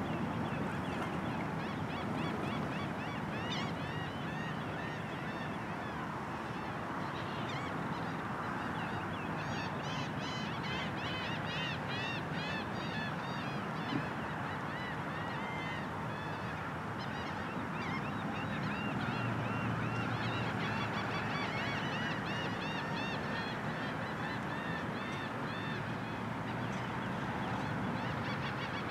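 A flock of birds calling continuously, many short arched calls overlapping one another, over a steady wash of background noise.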